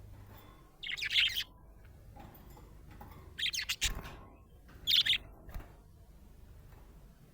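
Budgerigar chirping in short, high-pitched bursts: three loud chirp phrases about a second to a second and a half apart, then a faint one before it falls quiet.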